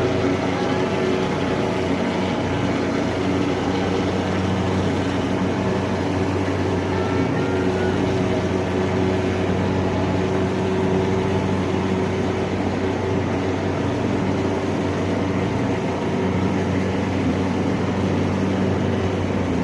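Insecticide fogging machine running with a steady, unbroken engine drone.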